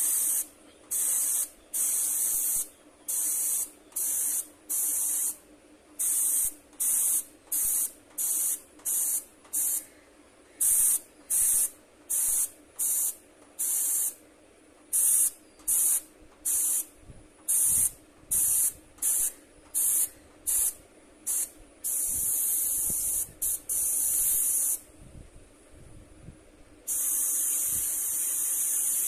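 Airbrush spraying paint in short hissing bursts, about one or two a second, as the trigger is pressed and released. Two longer sprays of a few seconds each come near the end.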